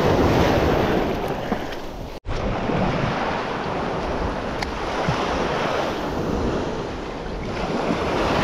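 Surf breaking and washing on a beach, rising and falling in slow swells, with wind buffeting the microphone. The sound cuts out for an instant about two seconds in.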